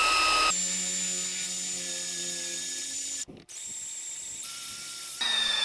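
Electric hand drill boring a 1/4 inch hole in quarter-inch steel plate with a cobalt bit: a steady motor whine that drops in pitch about half a second in as the bit bites. It stops for a moment a little past halfway, then starts again and shifts once more near the end.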